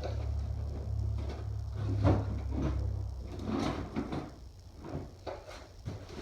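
Rummaging through stored parts: a string of irregular knocks, scrapes and clatters, the loudest about two seconds in, like things being moved about in a drawer or box.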